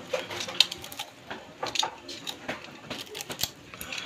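Dry coconut husk and dried leaf sheaths being torn and peeled off a sprouted coconut by hand: irregular crackling and snapping, with short sharp clicks at uneven intervals.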